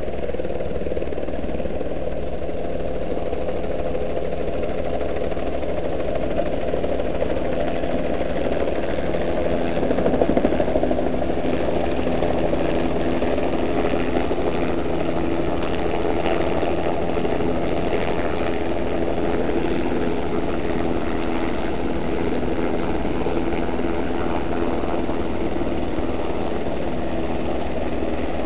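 Light turbine helicopters running steadily: the whine of the turbines and the beat of the rotors as one helicopter hovers low to land on the pad. The sound swells briefly about ten seconds in and gets a little harsher from there on.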